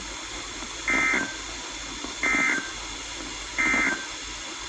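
Three short, identical bursts of warbling digital data tones, about a second and a bit apart: the SAME end-of-message code that closes an Emergency Alert System / NOAA Weather Radio warning.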